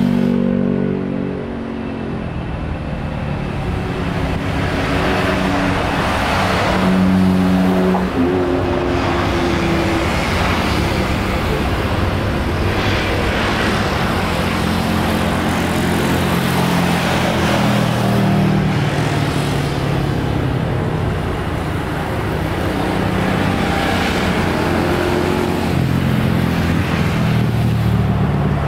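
Jet engines of a Boeing 737 airliner running at high power as it rolls along the runway: a loud, continuous roar with low droning tones that shift in pitch, cutting off suddenly at the end.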